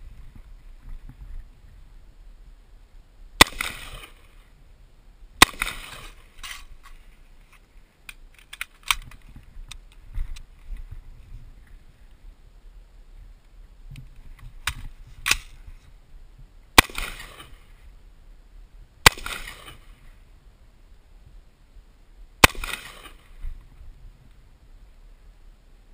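M4 carbine (5.56 mm) fired in single shots at range targets: five loud, sharp cracks spaced a few seconds apart, each with a short echo, and fainter pops and clicks in between.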